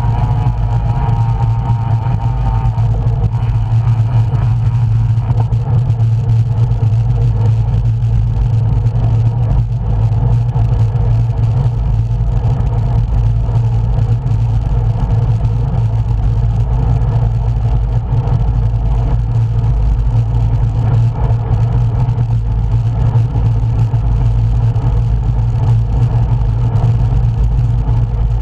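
Steady wind rush and road noise from riding a road bicycle, with a strong low hum throughout. A brief higher tone sounds over it for the first couple of seconds.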